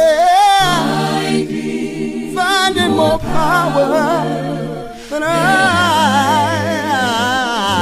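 A cappella gospel singing: several voices in harmony holding long notes with vibrato, with fresh phrases entering about three and five seconds in.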